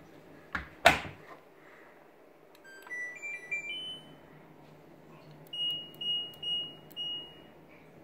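Front-loading LG F12B8ND washing machine: the door is pushed shut with two knocks, the second a loud latch clack, about a second in. Its control panel then plays a short rising tune of electronic beeps, and a couple of seconds later gives four short beeps of one pitch.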